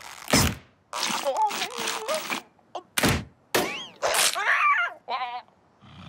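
Cartoon crocodile-like creature groaning and yelping in pain with a spiny cactus in its jaws, broken by a couple of sharp hits, ending in a short warbling cry.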